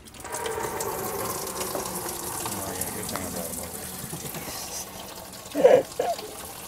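Engine coolant pouring out of the BMW E36 M3's water pump opening into a bucket as the pump comes free. A steady splashing stream starts suddenly and eases slightly after about four seconds.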